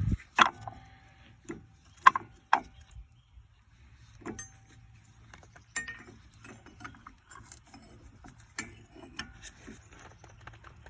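Metal hand tools clinking and clanking on a front brake caliper. A handful of sharp strikes, some ringing briefly, come in the first few seconds, then lighter scattered clicks follow.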